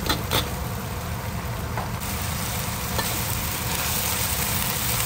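Bitter gourd leaves sizzling in hot oil in a wok while a metal spatula stirs and scrapes them, with a couple of sharp clicks at the very start and a steady low rumble underneath.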